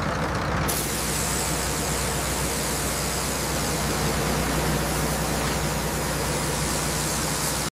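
Engine-driven, belt-driven circular saw running: a steady, noisy mechanical drone with a low hum beneath, the hiss growing brighter about a second in.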